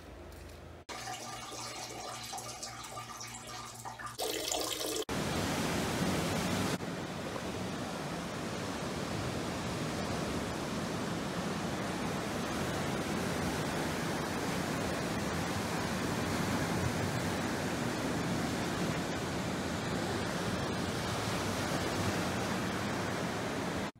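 Steady rushing noise of ocean surf breaking on a beach, starting about five seconds in. Before it comes a quieter stretch with a low steady hum, broken by a few abrupt cuts.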